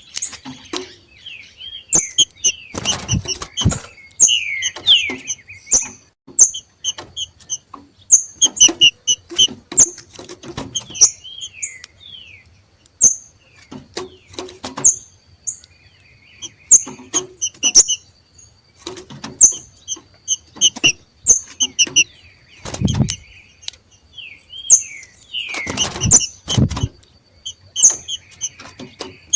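Green-winged saltators (trinca-ferros) giving the macheado: rapid runs of short, high chips mixed with quick downward-slurred notes, the call of birds coming into breeding condition. Scattered sharp clicks run through it, with two heavier low thumps near the end.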